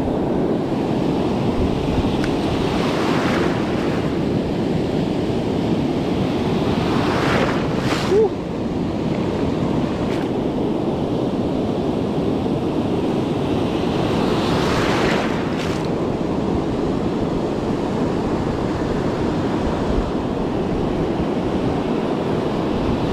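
Pacific surf washing and breaking around the wader, a steady rush that swells louder a few times as waves come through, with wind buffeting the microphone. A brief sharp knock about eight seconds in.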